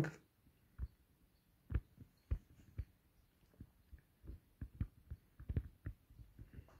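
Faint, irregular soft thumps and clicks, about a dozen, unevenly spaced.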